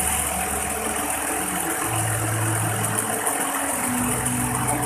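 Industrial fagoting sewing machine running with a steady mechanical hum; its low tone steps up in pitch about two seconds in.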